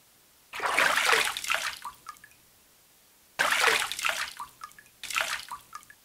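Water splashing and running off in three bursts as mustard greens are washed by hand. Each burst starts suddenly and tails off in drips.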